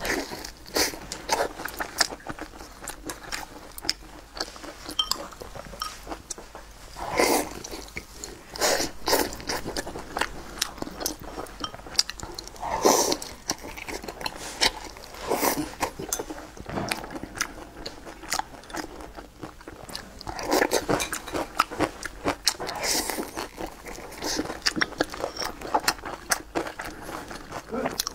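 A person eating a pan-fried vegetable pancake: repeated bites and crisp crunches with chewing in between, at an irregular pace.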